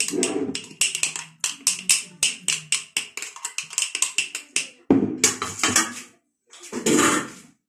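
Spoon tapping and scraping against a glass jar in a rapid run of sharp clicks as tomato sauce is spooned and pressed into it, followed by two louder, longer knocks near the end.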